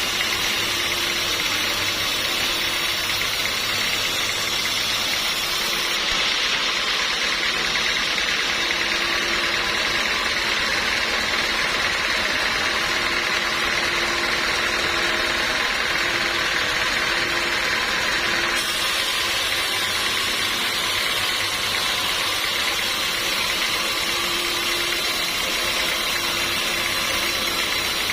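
Sawmill machinery running steadily on teak logs, a continuous mechanical noise that changes in tone about six seconds in and again about two-thirds of the way through.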